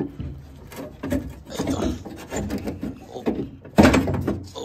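Manual window regulator scraping and knocking against the sheet-metal inner panel of a 1996–2000 Honda Civic door as it is worked out through the access hole. Irregular scrapes and knocks, with a louder scrape near the end.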